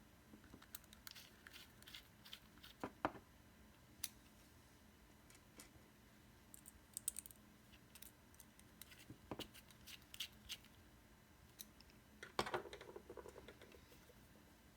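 Faint, scattered clicks and light scraping of tiny screws being driven into a vape mod's housing with a small precision screwdriver, with a louder scrape near the end.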